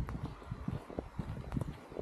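Footsteps on wet paving, a series of soft thuds and clicks at walking pace, over a low steady rumble.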